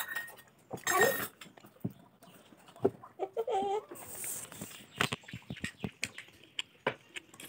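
A hen clucking in two short calls, about a second in and again midway, with a spoon clinking against a steel plate several times in the second half.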